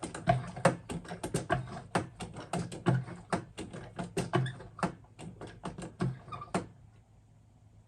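Lever-action bucket pump drawing air along with the last of the hydraulic oil as the 5-gallon bucket runs dry, sputtering and popping irregularly several times a second. It stops about six and a half seconds in.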